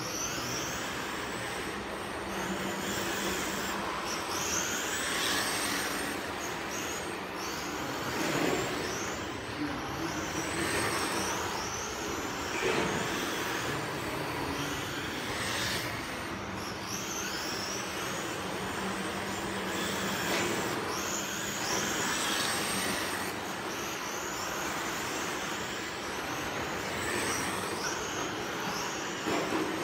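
Electric 1:10 RC touring cars racing on an indoor carpet track: high-pitched motor whines that rise as the cars accelerate out of the corners, again and again as they pass, over a steady hiss of tyres on the carpet.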